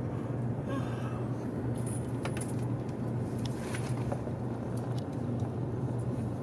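Steady low rumble and hum inside a moving Taiwan High Speed Rail train carriage, with a few light clicks of chopsticks against a bento box.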